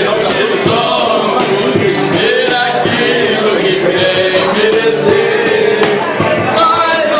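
Male voices singing a sertanejo song over music.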